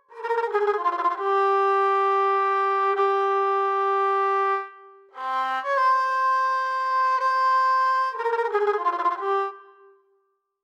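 A sampled Middle Eastern melodic instrument from Native Instruments' Discovery Series Middle East library playing a solo phrase: quick ornamented runs leading into a long held note, a brief break about five seconds in, then another held note and a closing run that dies away near the end.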